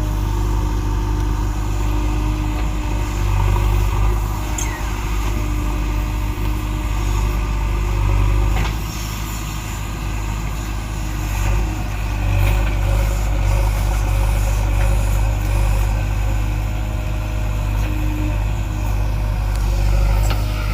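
JCB 3DX backhoe loader's diesel engine running steadily under work, with a couple of short squeaks and clicks over it.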